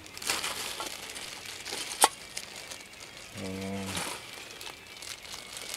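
Clear plastic zip bags crinkling and rustling as gear is handled, with a sharp click about two seconds in. A short hum of a man's voice about halfway through.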